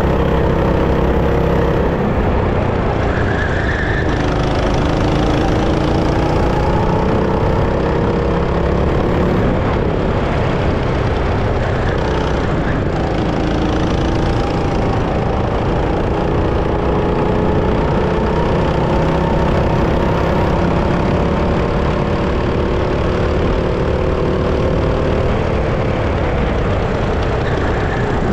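Go-kart engine running, its pitch climbing as the kart speeds up and falling back several times as it slows, over a constant low rumble.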